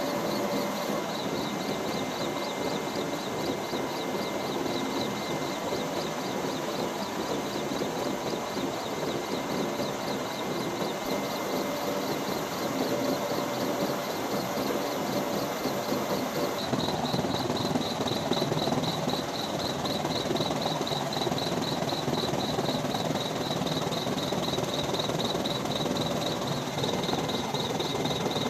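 Steady helicopter engine and rotor noise, with a fast pulsing whine high in the sound; its character shifts slightly about two thirds of the way through.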